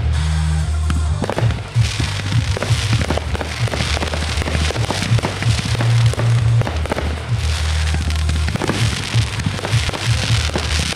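Aerial fireworks bursting and crackling, many reports in quick succession, over music with a heavy, steady bass line.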